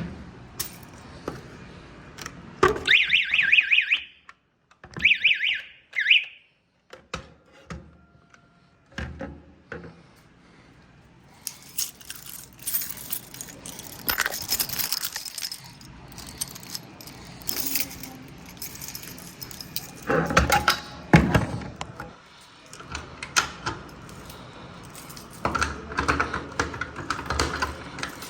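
A fire alarm horn sounds in two short buzzing blasts of about a second and a half each, a second apart. Later comes an irregular clatter of clicks, knocks and rattles.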